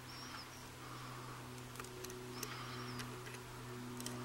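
Faint, sparse clicks of a steel hook pick working the pins of a six-pin Chubb rim cylinder under light tension during single-pin picking, over a steady low hum. A couple of brief high chirps, like a bird, come in early and around halfway.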